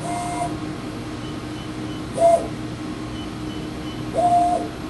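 Motor drives of a Sprint CNC-300 video measuring machine moving the stage and optics between measuring points during an automatic inspection run: three short whines about two seconds apart, each rising in pitch, holding and falling, the last one longest. A steady hum lies underneath.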